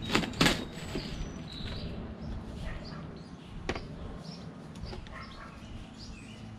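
A cardboard product box being handled and worked at to open its slide-off sleeve: two sharp knocks and scrapes right at the start, then a lighter click a few seconds later. Birds chirp faintly in the background over a steady low hum.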